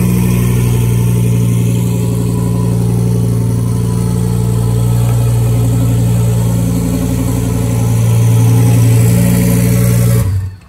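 A car engine running steadily at constant revs, swelling a little near the end, then cut off abruptly.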